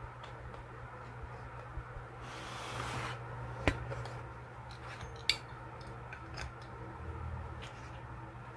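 Desk handling sounds from hands moving a wooden box and a kraft-paper journal: a brief sliding rustle about two seconds in, then two sharp clicks about a second and a half apart, with lighter taps scattered around them over a low steady hum.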